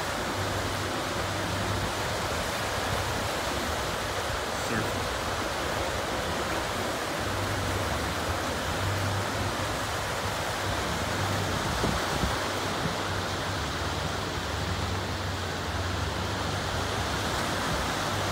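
Lake Erie waves breaking on a sandy beach: a steady wash of surf, with a low rumble that comes and goes underneath.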